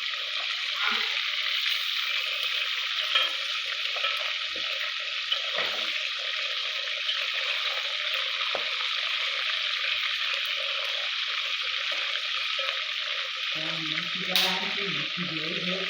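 Tilapia pieces deep frying in hot oil: a steady sizzle, with a single sharp knock near the end.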